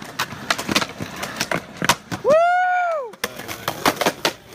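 Skateboards snapping and clacking on concrete, with repeated sharp pops and landings. About halfway through, a loud high-pitched squeal rises and then falls in pitch, lasting just under a second.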